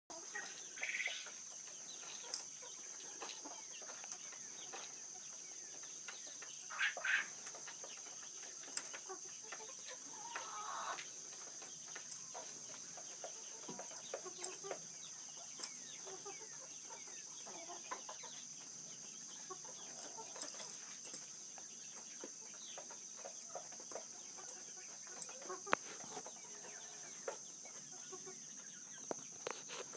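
Manchurian golden coturnix quail giving a few short clucking calls: about a second in, around seven seconds, and near eleven seconds. Scattered light clicks of scratching and pecking in straw run between the calls, over a steady faint high-pitched drone.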